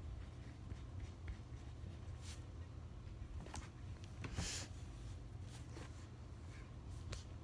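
A pen writing on paper: short scratchy strokes at uneven intervals, the longest about four and a half seconds in, over a low steady hum.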